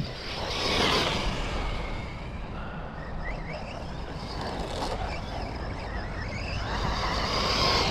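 Losi Lasernut U4 1/10 brushless RC rock racer being driven: a steady, noisy running sound that swells about a second in and again near the end.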